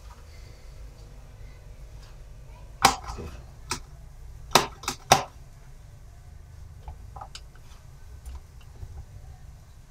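Sharp clicks and knocks from a table fan being handled and checked after it has stopped running. There are five loud ones close together between about three and five seconds in, then a few fainter ones.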